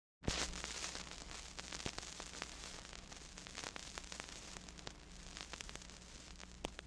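Static: a steady hiss full of scattered crackles and clicks over a low hum, cutting in abruptly after a moment of dead silence.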